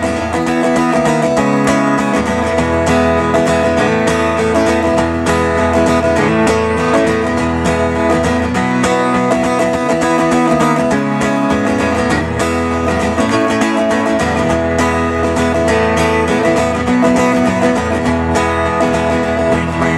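Acoustic guitar strummed in a steady rhythm, played live through PA speakers: an instrumental break between verses of a folk song, with no singing.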